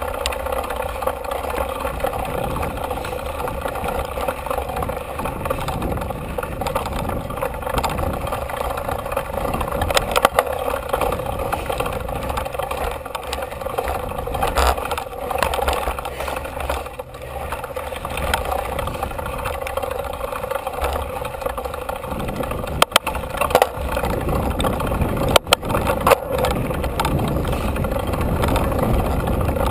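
Mountain bike rolling over a dirt singletrack, heard from a GoPro mounted on the handlebars: steady tyre and bike rattle noise, with sharp knocks over bumps about ten seconds in and several more near the end.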